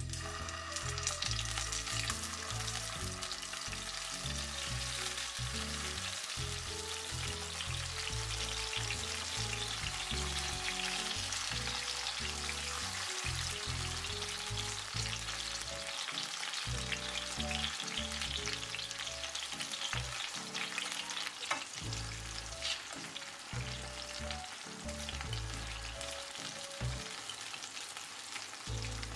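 Tomato slices sizzling and crackling steadily as they fry in hot olive oil in a non-stick pan, with background music underneath.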